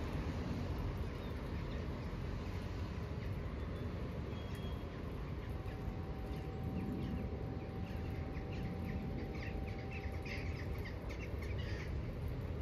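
Outdoor ambience: a low steady rumble, with small birds chirping in quick short notes through the second half. A faint steady tone sounds through the middle.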